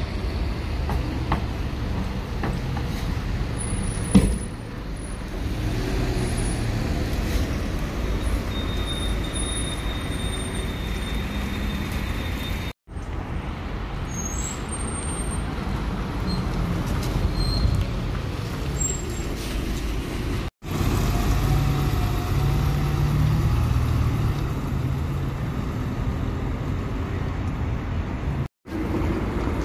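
City buses running and pulling past in street traffic: a steady low diesel engine rumble with road noise, broken off abruptly three times. A sharp knock about four seconds in stands out as the loudest sound.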